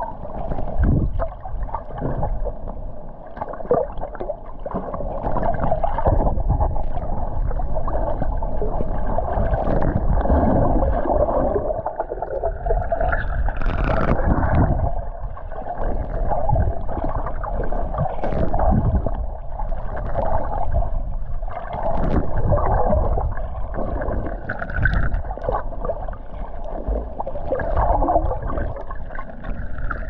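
Muffled underwater gurgling and rushing of water, picked up by a camera held under the surface, with a low rumble that swells and fades every few seconds.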